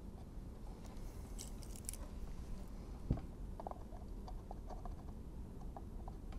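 Faint handling noises from wiring work at a small toggle switch: light clicks and rustles, with one sharper tap about three seconds in.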